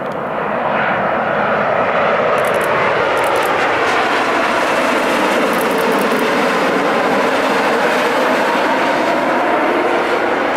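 Jet airliner engines running with a loud, steady roar.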